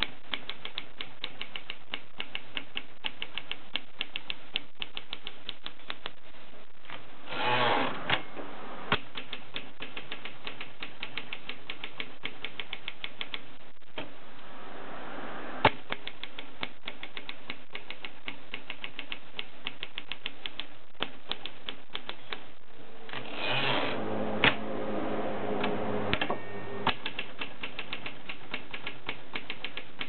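Continental portable typewriter being typed on: a fast, steady run of key and typebar strikes, broken twice by a longer, noisier stretch, about seven seconds in and again around twenty-four seconds.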